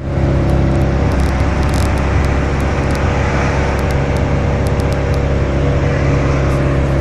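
Steady hum of a moving road vehicle: engine drone and road noise, constant in level.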